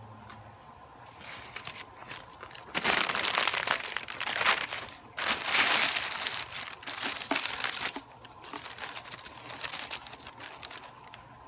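A food wrapper being crumpled up close, in two long stretches of dense crinkling about three and five seconds in, then lighter crackling.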